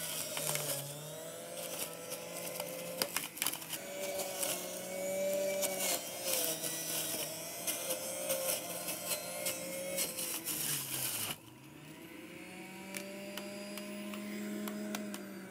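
Breville centrifugal juicer's motor running at its top, hard-vegetable speed, its pitch wavering under load as celery stalks are pushed down the chute and shredded, with crunching and clicks. After about eleven seconds the shredding stops and the motor runs on more quietly, unloaded.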